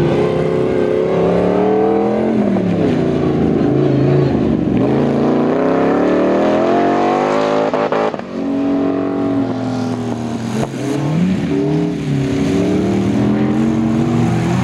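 Autocross race car engines revving hard on dirt. The pitch climbs through each gear and drops back on every shift or lift. The sound breaks off abruptly about eight seconds in, then carries on with lower revving and repeated dips in pitch.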